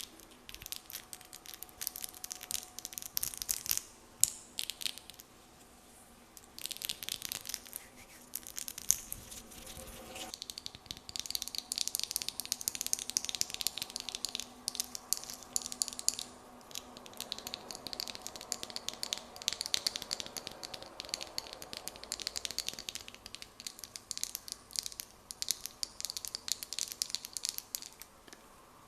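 Fingernails tapping lightly on hands in fast runs of crisp clicks. There is a short lull about five seconds in.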